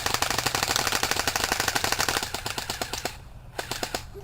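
Airsoft guns firing at a banana target in a fast, continuous rattle of shots, which thins out to a few separate shots about three seconds in.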